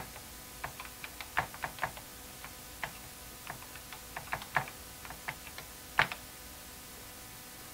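Keystrokes on an Apple IIe computer keyboard: irregular clicks as a short line is typed, ending with a louder keystroke about six seconds in as the line is entered with Return.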